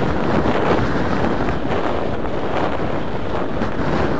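Wind buffeting the camera's microphone: a steady, loud rushing noise with no clear rhythm, likely with waves underneath.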